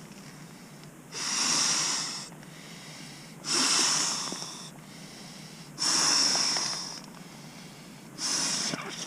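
Breath blown by mouth into the valve of an inflatable Sea to Summit Aeros pillow: four long puffs, each about a second long, roughly two seconds apart.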